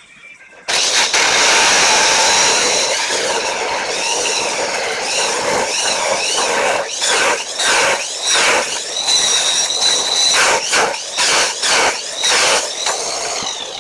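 Electric grinder saw cutting through flat steel stock, a loud screech that starts suddenly about a second in, its pitch wavering with the load. From about seven seconds on it breaks into short repeated surges, and it tails off near the end.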